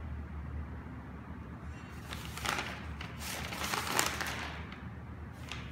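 Sheets of paper rustling as they are handled and leafed through, several rustles in the second half with the loudest about four seconds in, over a steady low hum.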